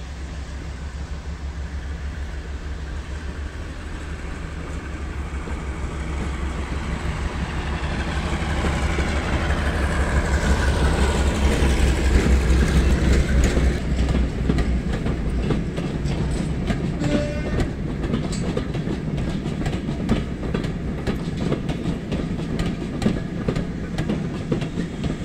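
Class 52 Western diesel-hydraulic locomotive's twin Maybach V12 engines running under power as it departs with a train, growing louder to a peak about twelve seconds in as it passes, its pitch falling. Then the coaches roll by with a steady clickety-clack of wheels over rail joints and a low rumble.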